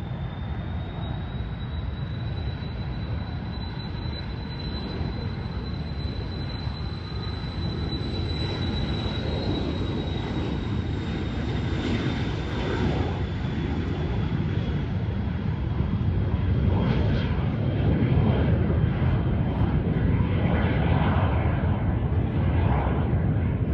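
Airliner's jet engines: a deep rumble that grows louder toward the end, with a thin high whine that rises a little at first and then slowly drops in pitch as the aircraft passes.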